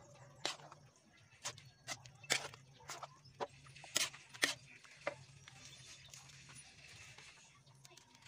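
A plastic pouch of spaghetti sauce being squeezed and poured into an aluminium wok, giving a run of irregular sharp clicks and crackles, about nine in the first five seconds, that then give way to a faint hiss.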